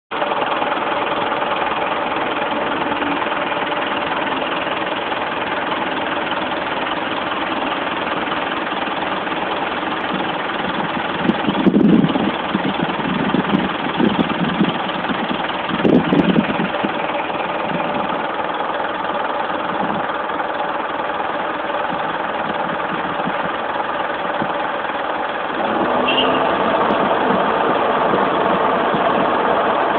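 Parked box truck running at idle, a steady engine drone. Several short louder sounds come between about twelve and sixteen seconds in, and the drone gets louder from about 26 seconds in.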